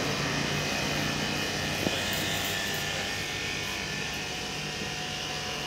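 Steady hum of a running motor, even and unbroken, with a faint single click about two seconds in.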